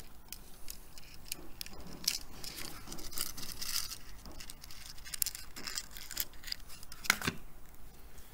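Small clicks, taps and rattles of handling small parts at a bench, with a sharper, louder click about seven seconds in.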